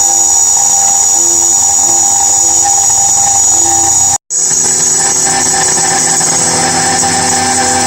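CNC router spindle with a 6 mm cutter running and milling aluminium, a loud, steady, high-pitched whine as it cuts the outside profile of the parts. It breaks off for an instant about four seconds in, then carries on.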